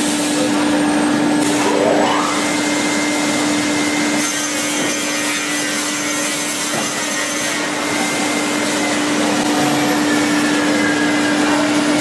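Automatic plywood DD edge-trimming saw running: a steady motor hum under a loud, even machine and saw noise, with a short rising whine about two seconds in and again at the end.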